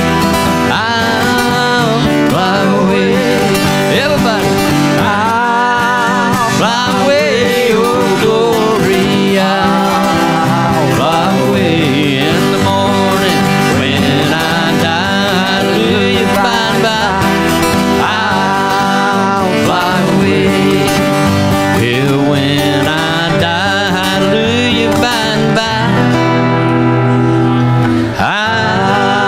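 Live acoustic country-gospel music: acoustic guitars strumming with a man singing.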